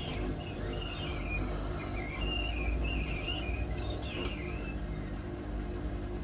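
Hotpoint WMA32 washing machine drum spinning on worn bearings: a steady low rumble with wavering, high-pitched squeaks that stop near the end. The squeaking and rumbling are the sign of failing drum bearings.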